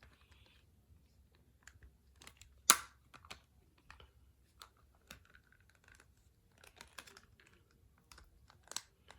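Small plastic clicks and taps from a toy's retractable helmet mechanism and parts being handled and worked, with one sharp, loud click about three seconds in.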